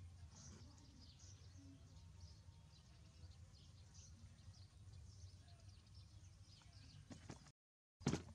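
Near silence: faint outdoor background with a low hum and scattered short, high chirps. The sound cuts out completely for a moment near the end, then comes back with a sharp knock.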